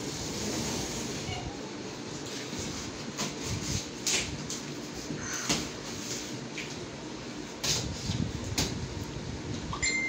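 A large cardboard appliance carton being cut and torn open by hand, with packing tape and cardboard scraping and rustling. Several sharp cracks of cardboard or tape are spread through it.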